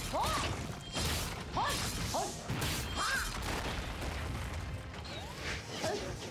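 Cartoon battle sound effects for an armoured robot mech: a string of crashing impacts, about one a second, mixed with mechanical whirring and short whines that rise and fall.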